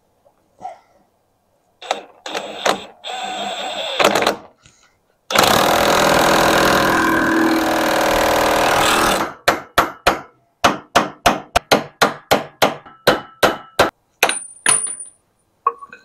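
Cordless impact wrench running down the pitman arm nut on a Jeep Wrangler TJ's steering gearbox: a few short bursts, then about four seconds of continuous hammering. After that comes a run of sharp clicks, about three a second.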